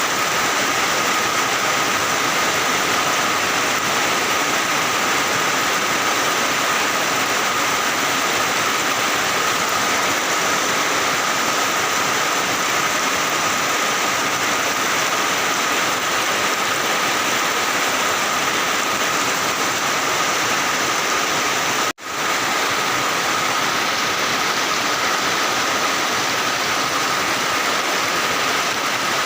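Rain pouring down steadily as an even hiss, with a faint high tone running under it; the sound cuts out for a split second about two-thirds of the way through.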